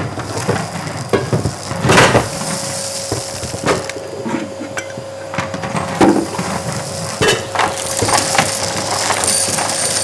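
Slapstick sound effects: a wooden chair clattering over and china clinking as a taut extension cord drags through furnishings, in a string of knocks. A thin steady whine runs under them from about two seconds in.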